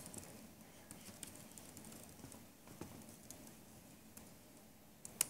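Laptop keyboard keys being typed, scattered faint clicks with one sharper, louder key click near the end.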